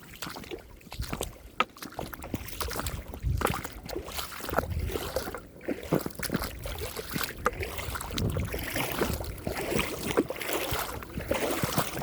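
Boots wading through a shallow creek, with water sloshing and splashing at each step and irregular thuds and clicks as the feet come down.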